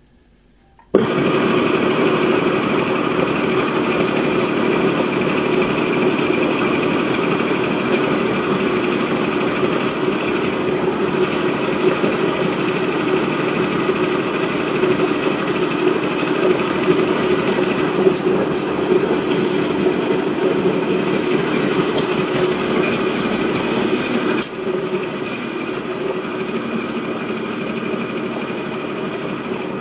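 Electric grinding mill switched on about a second in and running steadily as ginger is fed through its steel hopper and ground to powder. A few sharp ticks sound from pieces in the mill, and the sound drops a little about 24 seconds in.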